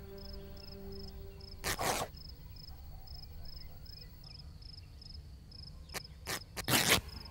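Crickets chirping steadily, a short high chirp about three times a second. A held musical note fades out early. A few short whooshing bursts come about two seconds in and again near the end.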